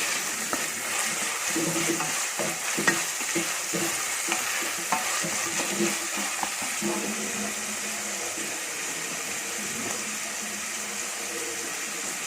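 Onion and sliced bell peppers sizzling in a frying pan as they are stirred. A utensil scrapes and clicks against the pan often in roughly the first half, then the sizzling continues more evenly.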